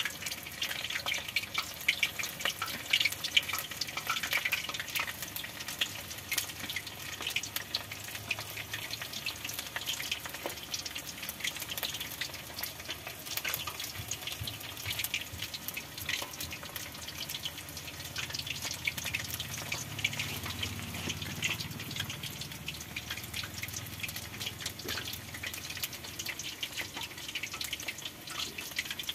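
Battered meat kebab pieces deep-frying in hot oil in a steel kadai: a steady crackling sizzle.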